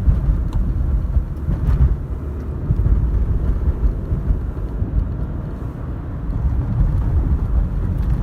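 A car on the move: low, uneven road and wind rumble with no clear engine tone.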